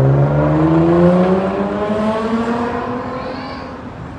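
A motor vehicle accelerating past, its engine note rising steadily in pitch and then fading away near the end.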